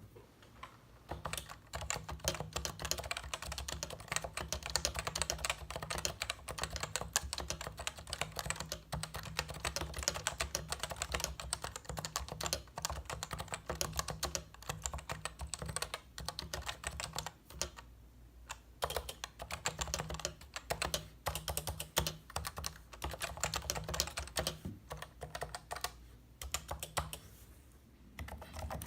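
Fast, continuous typing on a stock Topre Type Heaven keyboard: its Topre electrostatic capacitive switches with their stock sliders and keycaps, no O-rings or lube. There is a brief pause about two-thirds of the way through and lighter typing near the end.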